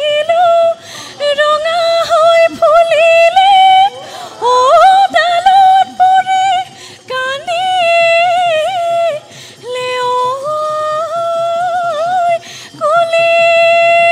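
A woman singing a solo Bihu folk song into a microphone, holding long high notes with wavering ornaments and sliding up between pitches, in phrases broken by short breaths.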